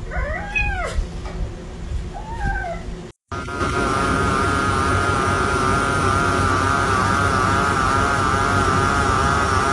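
A cat meows twice, two short rising-and-falling calls. After a sudden cut comes a louder, steady droning buzz whose pitch wavers slightly.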